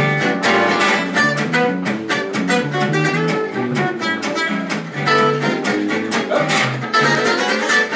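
Acoustic jazz trio playing live: a lead guitar picks a fast melody line over a rhythm guitar and a stepping bass line.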